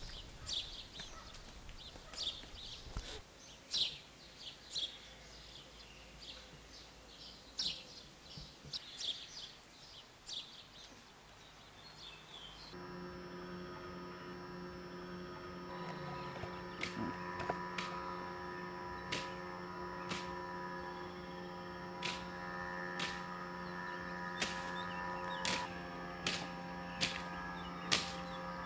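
Birds chirping outdoors for roughly the first twelve seconds. The sound then changes abruptly to a steady electric-sounding hum of several held tones. From a few seconds later, sharp clicks come roughly once a second.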